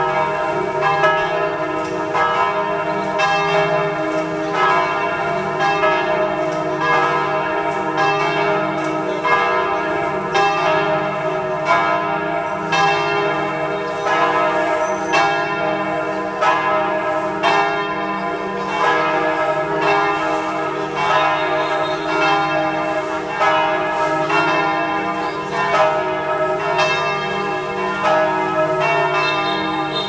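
The bells of St. Joseph's Cathedral in Hanoi ringing continuously: several bells struck in quick succession, their tones ringing on and overlapping.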